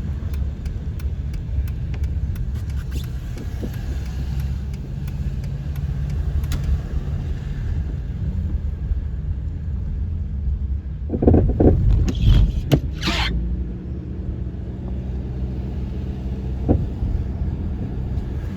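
Car driving, heard from inside the cabin: a steady low road and engine rumble, with a short cluster of louder noises about eleven seconds in.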